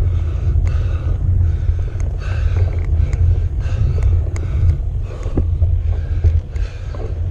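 Steady low rumble of wind and road vibration on a bicycle handlebar camera's microphone, with a cyclist's hard breathing in rhythmic gasps about every half second to second and a few light clicks: a rider labouring up a steep climb.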